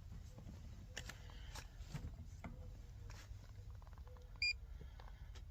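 Faint scattered clicks and handling noises, with one short electronic beep about four and a half seconds in.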